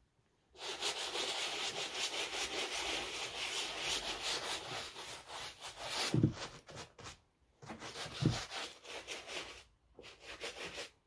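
Shoe brush scrubbing the tongue of a Nike Air Jordan 1 Low sneaker with foamy cleaning solution: quick, steady rubbing strokes in three spells separated by two brief pauses, with a dull knock about six seconds in and another about eight seconds in.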